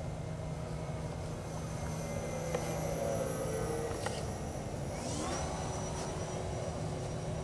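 Motor and propeller of a small foam radio-controlled model plane in flight: a whine that falls in pitch as it passes, then another that rises about five seconds in and holds steady, over a steady low hum.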